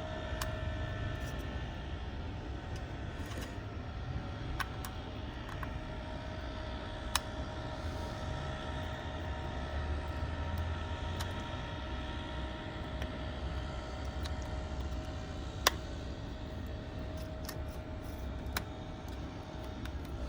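Steady background hum of a fan or similar machine, with a few short sharp clicks of a small tool against the phone as the screen is pried up.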